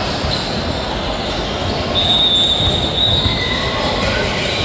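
Two drawn-out high-pitched squeals over the steady noise of a large indoor hall: a long one starting about two seconds in, then a lower, shorter one near the end.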